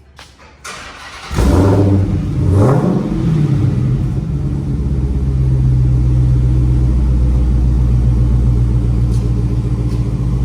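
Dodge Challenger Hellcat's supercharged 6.2-litre V8 firing up about a second and a half in, its revs flaring up and dropping back, then settling into a steady idle through newly fitted Magnaflow glass-pack style mufflers.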